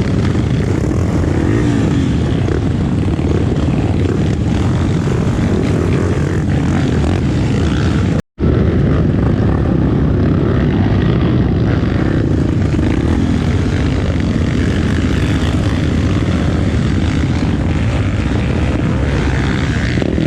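Tornado trail motorcycle engine running steadily while riding, with heavy wind rumble on the microphone. The sound cuts out completely for a split second about eight seconds in.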